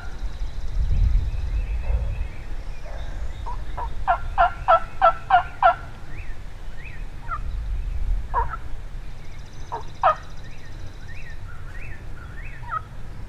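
Wild turkey gobbling: a fast rattling run of about seven falling notes some four seconds in, followed by a few single falling calls. Small bird chirps and a low wind rumble run underneath.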